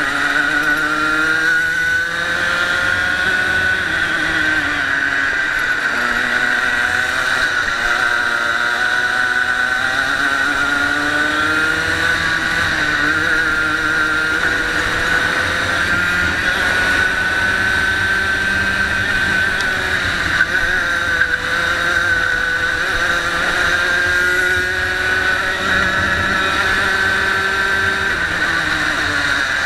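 Racing kart engine heard from an onboard camera, its pitch climbing along the straights and dropping back into the corners again and again.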